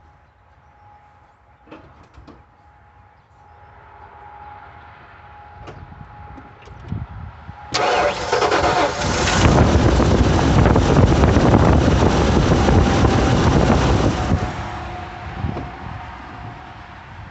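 Truck engine starting on a freshly installed battery: after a few clicks it fires suddenly about eight seconds in, runs loudly for several seconds, then settles to a quieter idle.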